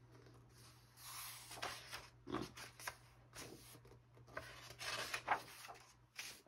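Soft paper rustling and rubbing as a hand slides over the pages of a thick catalog book, with a page turned near the end.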